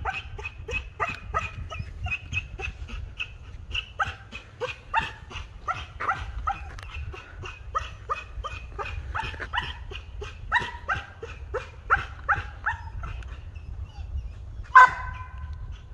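Flat-coated retriever barking in a quick run of short barks, about three a second, as it faces off with a deer. The loudest, sharpest bark comes near the end.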